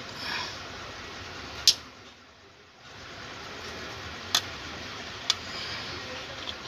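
Three sharp plastic clicks, a second or more apart, as wiring-harness plugs are pushed into a Wagon R's engine control module, over a low steady hiss.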